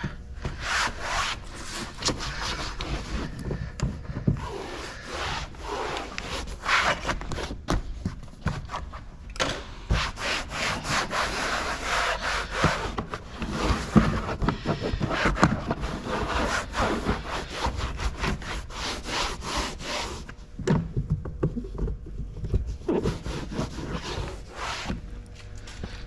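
Cloth or towel wiping down a freshly tinted car door window and door: a run of irregular rubbing strokes with short pauses between.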